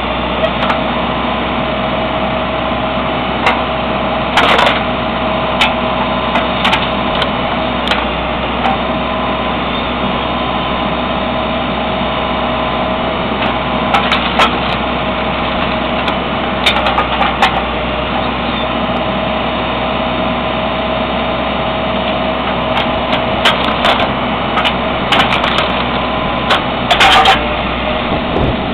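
Backhoe engine running steadily to power a hydraulic log splitter, with sharp cracks of wood splitting every few seconds; the loudest cracks come near the end.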